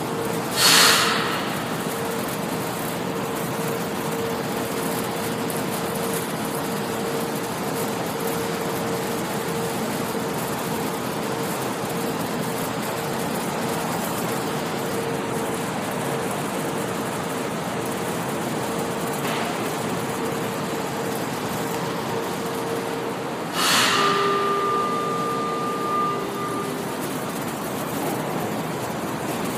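São Paulo Metro Line 1 L-fleet train standing at the platform, its equipment giving a steady hum with a constant tone. A short hiss of air comes just under a second in. About 24 seconds in there is another hiss of air, then a two-tone signal sounds for about three seconds: the door-closing warning.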